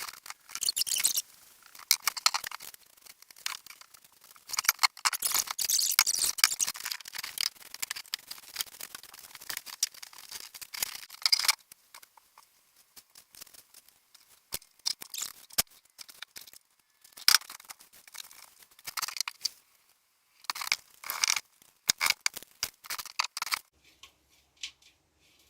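Scraping and rustling of potting soil being scooped and poured into a plant pot, with small knocks, in irregular bursts that grow sparser after about twelve seconds.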